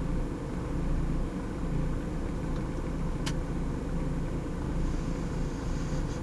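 BMW E36 318is four-cylinder engine idling roughly and unevenly when warm, which the owner suspects may come from a faulty O2 sensor. A single sharp click sounds about halfway through.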